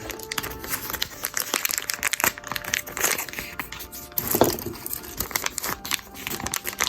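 Packaging crinkling and rustling as a packet is opened and handled, over background music.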